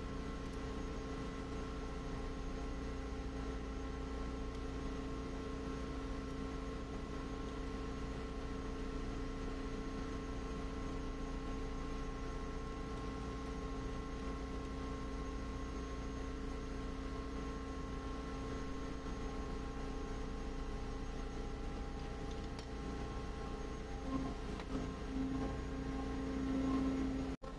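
Steady machinery hum, several fixed tones over a low rumble, typical of the background machinery in a ship's workshop. About 24 seconds in, a lower tone starts to pulse and grows louder, then the sound cuts off abruptly for a moment just before the end.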